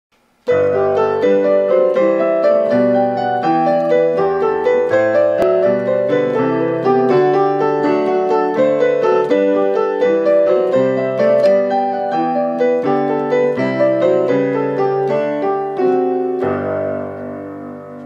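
Solo piano music: a steady run of notes starting about half a second in, ending on a held chord that fades away near the end.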